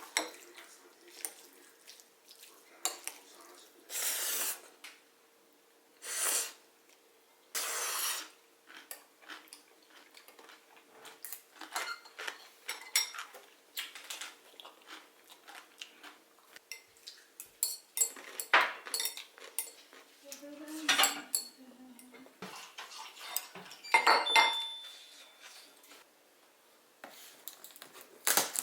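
Dishes and cutlery clinking and knocking in irregular sharp clicks, with a few short scraping strokes.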